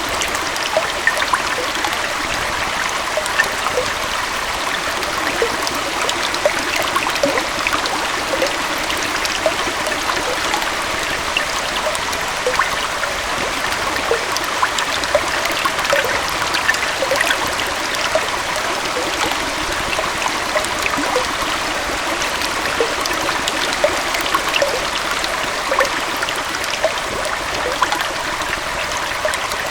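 Small waterfall and forest stream flowing steadily: an even rush of water with many small splashes and gurgles scattered through it.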